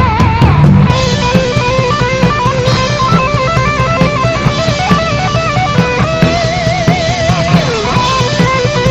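A rock band playing: an electric guitar picks out a stepping lead melody over drums and bass. About six seconds in, the guitar holds one wavering note, then slides down off it.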